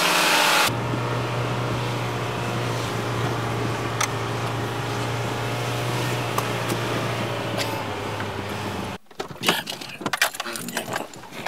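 Car engine droning steadily as the car drives, heard from inside the cabin. It cuts off abruptly near the end, followed by a few scattered clicks and knocks.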